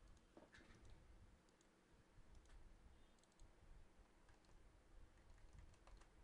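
Near silence: faint room hum with a few scattered soft mouse clicks and key presses on a computer.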